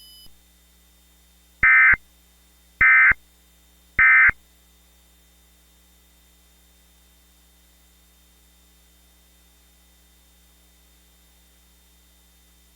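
EAS SAME end-of-message data tones: three short, harsh digital chirp bursts about a second apart, marking the end of the alert. A faint steady hum follows.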